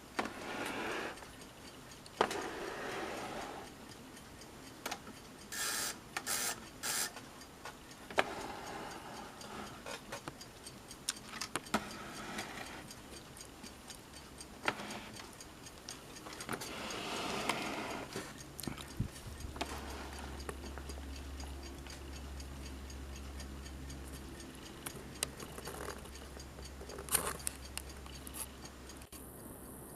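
1946 Underwood Standard manual typewriter working: scattered sharp clicks of keys and typebars with short mechanical clattering runs in between.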